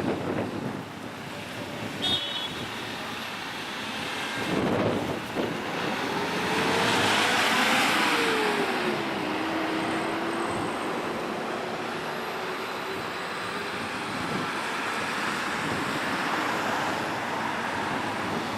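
Road traffic at an intersection: cars driving past, one passing loudly about seven seconds in with its engine note falling in pitch as it goes by.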